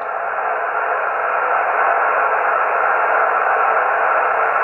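HF transceiver's speaker giving a steady static hiss of 20-metre band noise with no station heard, the receiver open between transmissions. The hiss is thin and telephone-like, cut to a voice-width slice of sound.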